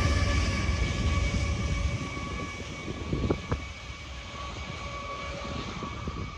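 Diesel locomotives at the rear of a freight train moving away: a low engine rumble with a steady whine that fades steadily. Two sharp clicks come a little past three seconds in.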